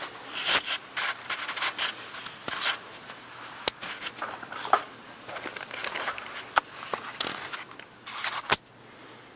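Handling noise from a hand-held camera: irregular scraping and rubbing with scattered sharp clicks.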